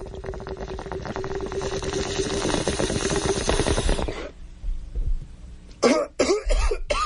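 Bong rip: water bubbling rapidly through a bong for about four seconds, followed near the end by coughing.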